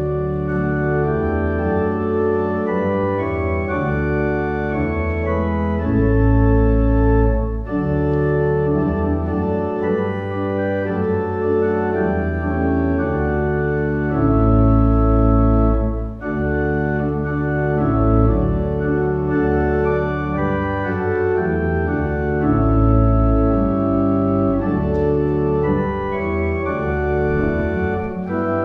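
Organ playing sustained chords over deep bass notes, the chords changing every second or two.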